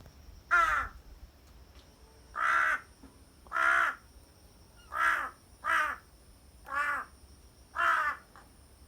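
Large-billed crow calling "aha! ahau!": seven short calls at uneven gaps of one to two seconds, two of them close together just past the middle.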